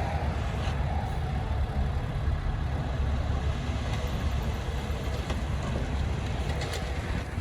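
Heavy machine's diesel engine running steadily at an even level, its sound sitting mostly in the low range.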